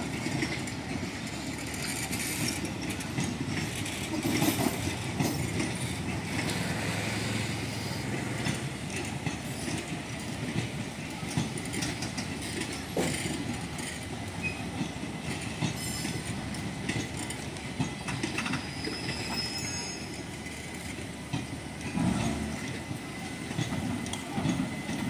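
Coaches of the Ernakulam–Patna Superfast Express rolling past on a departing train: a steady rumble of wheels on rail, with scattered knocks as the wheels cross rail joints.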